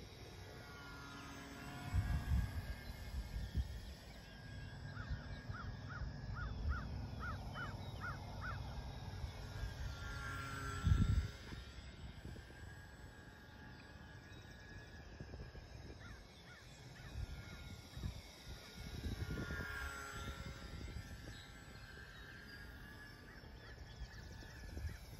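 Battery-powered electric motor and propeller of a small foam-board RC airplane in flight, a thin whine that rises and falls as the plane flies past, twice. Low gusts of wind hit the microphone, strongest about two seconds in and again about eleven seconds in.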